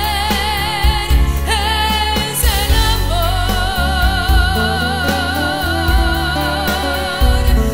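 A woman sings live into a handheld microphone over band accompaniment with a steady bass line. About three seconds in she holds one long note with a wide vibrato for several seconds.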